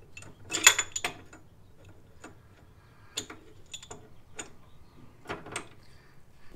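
Small pipe wrench clicking and clanking against the threaded steel joint of the steering shaft as it is worked loose in a tight space. A loud cluster of sharp metal clicks comes in the first second, then single clicks every half second to second.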